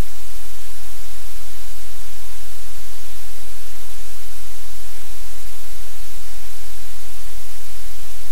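Loud, steady static hiss with a low hum beneath it, unchanging throughout; no separate sounds from the puppies or the room stand out.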